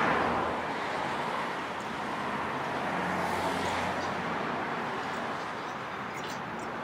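Steady background noise, an even hiss with no speech, with a few faint light clicks about six seconds in.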